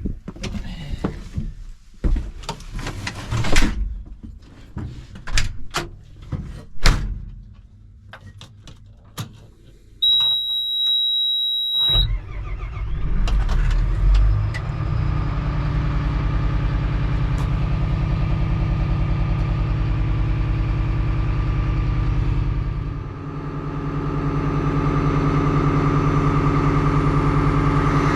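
A series of metal clunks and knocks, then a steady high tone for about two seconds, then a bulldozer's diesel engine starts about twelve seconds in and runs steadily. It drops briefly near the end and then comes back up a little louder.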